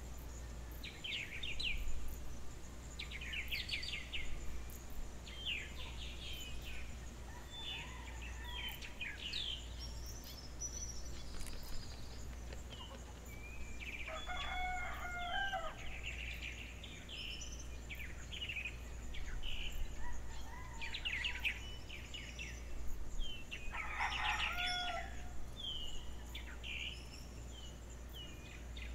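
Morning birdsong: small birds chirping on and off throughout, and a rooster crowing twice, about halfway through and again near the end, each crow lasting about two seconds.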